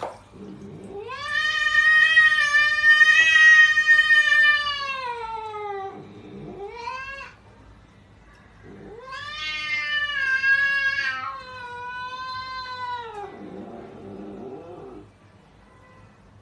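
Domestic cat yowling: two long drawn-out wails of several seconds each, with a short yowl between them, then a lower, quieter moan.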